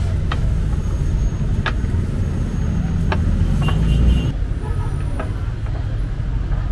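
Road traffic: a steady low rumble of passing vehicle engines, swelling as one passes close about four seconds in and easing off just after. A few sharp clicks are scattered through it.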